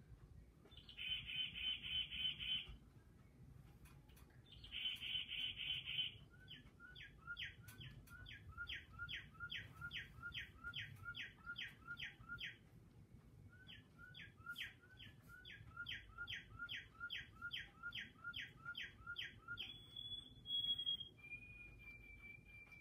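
A bird calling. Two short bursts of fast chatter come first, then long runs of repeated down-slurred whistled chirps at about three a second. Near the end these give way to long, steady whistled notes.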